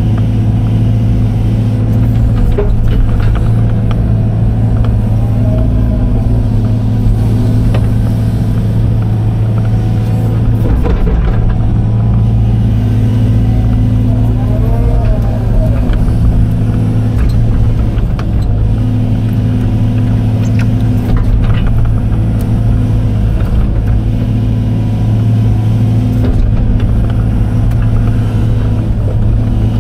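Case excavator's diesel engine running steadily while the operator digs with the bucket, heard from inside the cab. The low engine note breaks briefly a few times.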